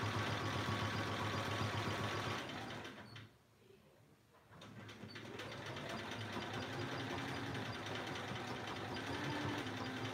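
Domestic sewing machine stitching during free-motion quilting, its motor and needle running steadily. About three seconds in it slows to a stop, and about a second and a half later it picks up speed again and keeps stitching.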